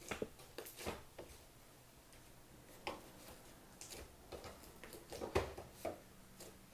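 Slime being handled, giving faint, irregular small clicks and pops.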